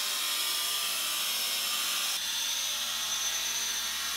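Handheld angle grinder cutting through a steel steering tie rod tube, a steady hiss of the disc in metal. About halfway through the character changes and a thin high whine comes in.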